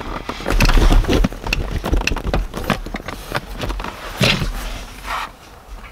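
Irregular clicks, knocks and rustling of hands working an aluminum aftermarket gas pedal onto its accelerator rod, metal parts tapping and scraping against the floor carpet.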